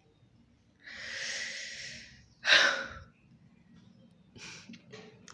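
A woman hiccuping: a long breath out, then one sharp, loud hiccup about two and a half seconds in, followed by a few faint breaths.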